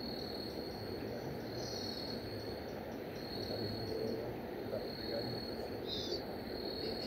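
Insects trilling steadily on one high note, with a couple of short, higher chirps over a steady background haze.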